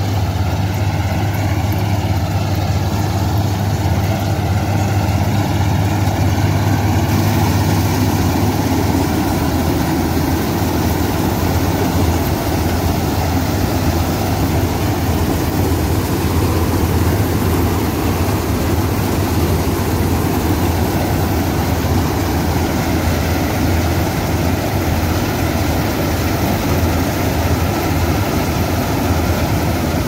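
Malkit 997 combine harvester running while cutting wheat: a steady, loud engine and threshing-machinery drone with a low hum underneath. It turns fuller and brighter about seven seconds in.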